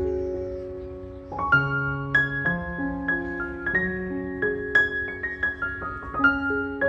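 Background music of solo piano. A held chord fades away, then about a second and a half in a new phrase starts with a chord followed by a flowing line of single notes.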